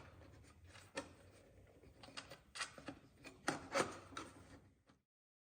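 Light knocks, taps and rubbing of wooden and plastic jig parts being handled and slid on a table as the jig is adjusted, with a few sharper clicks scattered through. The sound cuts off abruptly near the end.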